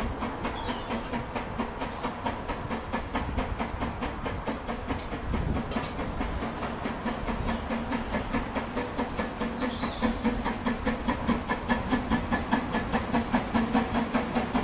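Narrow-gauge (2 ft 3 in) steam locomotive approaching slowly, its exhaust chuffing in a steady rhythm over a hiss of steam, getting louder as it nears.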